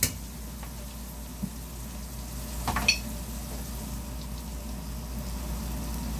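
Hot oil sizzling steadily as floured chicken wings shallow-fry in a pan, with one brief knock about three seconds in.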